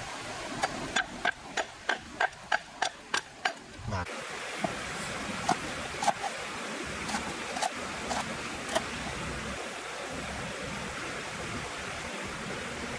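Cleaver chopping on a wooden chopping board: sharp knocks about three a second for the first four seconds, then scattered, softer cuts as red chillies are sliced, over a steady background hiss.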